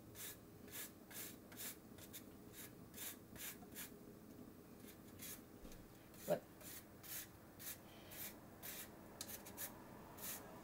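Orange peel being zested on a hand-held rasp grater: a run of short, faint scraping strokes, about two or three a second.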